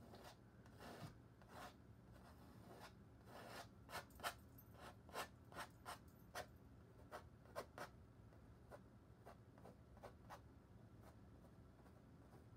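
Painting knife dragging oil paint across a stretched canvas: a string of short scraping strokes, loudest and closest together in the middle, stopping about ten seconds in.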